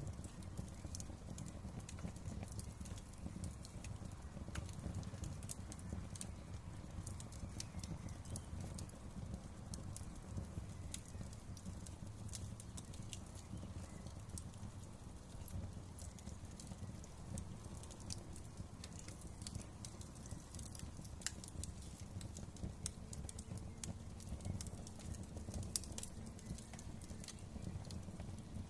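Wood fire crackling in a fireplace: a steady low rumble of flames with frequent small, sharp pops and snaps at irregular intervals.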